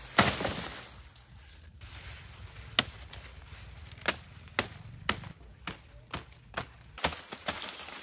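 A blade chopping sugarcane stalks: about ten sharp strikes, the first the loudest with a short trailing ring. After a pause of over two seconds, the strikes come quickly, about two a second, through the second half.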